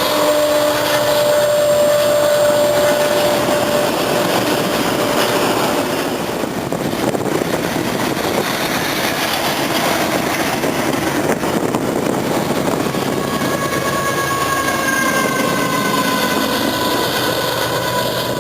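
A train rolling past, a steady loud rumble of wheels on rail, with a thin high wheel squeal in the first few seconds and again over the last five seconds.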